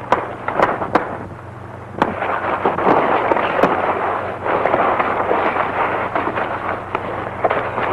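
Fistfight sound effects on an old, worn optical film soundtrack: a run of sharp punch and impact sounds with scuffling, over a dense crackling hiss and a low steady hum.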